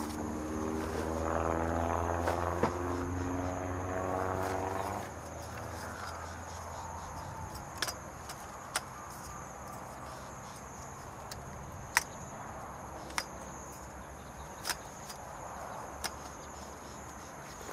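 A motor vehicle's engine running, its pitch rising over the first few seconds, then dying away about five seconds in. After that a steady high-pitched insect drone carries on, broken by scattered light knocks and clicks.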